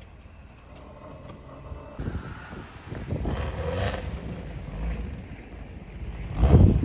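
Off-road vehicle's engine pulling under load, quiet at first, then surging in bursts from about two seconds in and loudest near the end, with wind on the microphone.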